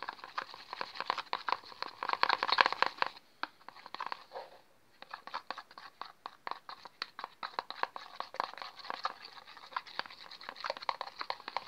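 A pencil stirring sticky glitter glue in a plastic bowl: quick wet clicking and crackling, loudest in the first three seconds, pausing briefly, then going on.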